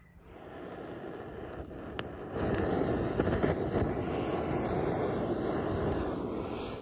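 Charcoal fire in a clay brazier flaring up: a steady rushing roar of flames with a few sharp crackles, growing louder about two and a half seconds in.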